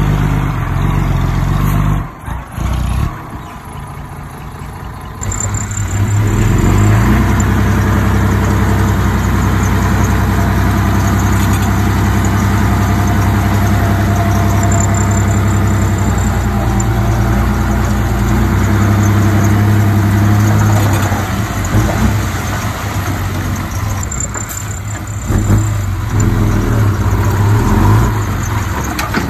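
Diesel engine of heavy earthmoving equipment running under load, its speed rising and falling. It drops quieter for a few seconds about two seconds in, then comes back up loud.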